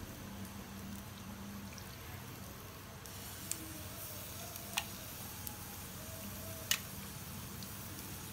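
Wet, marinated chicken cutlets being handled and laid onto a foil-lined grill tray, with soft squishing over a low steady hum. A few sharp clicks stand out, the loudest about halfway through and near the end.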